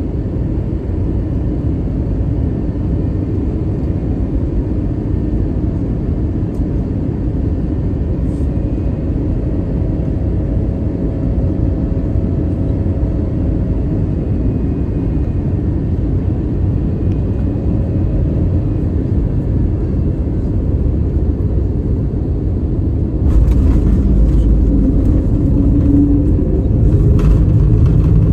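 Steady low rumble of a moving vehicle, stepping up louder about 23 seconds in, with a few short knocks after that.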